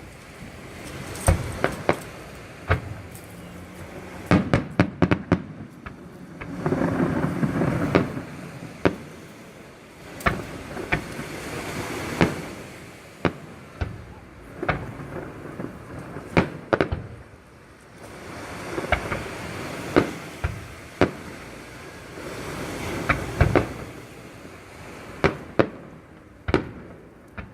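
Fireworks display: a long run of bursting shells with sharp bangs, some in quick clusters, and crackling between them, with a longer rumbling burst about seven seconds in.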